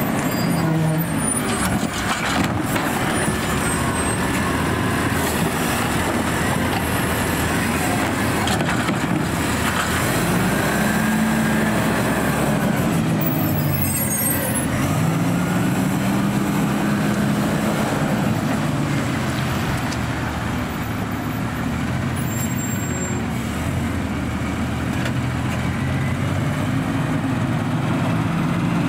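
Automated side-loader garbage truck's diesel engine running and revving up and down several times, each time slowly rising and falling in pitch, with a brief high hiss about halfway through.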